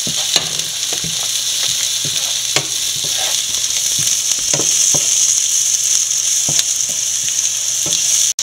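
Sliced onions, green chillies, ginger and garlic sizzling steadily in hot oil in a non-stick pan as they sauté, stirred with a wooden spatula that knocks and scrapes against the pan every second or two. The sound breaks off for a moment near the end.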